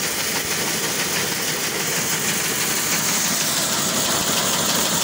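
Small electric maize seed cleaner running steadily, with a hiss of kernels pouring and rattling through the machine.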